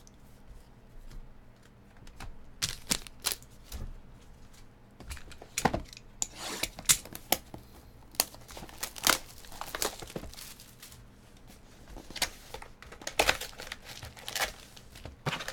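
A cardboard trading-card hobby box being torn open and the plastic-wrapped card packs inside handled: crinkling and tearing in short, irregular spells, starting a couple of seconds in.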